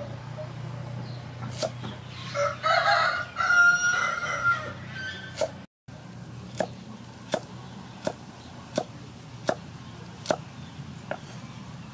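A kitchen knife chops through carrot onto a wooden cutting board, one sharp cut at a time, settling into a steady pace of about one cut every 0.7 s in the second half. A rooster crows about two seconds in; the crow lasts a couple of seconds and is the loudest sound.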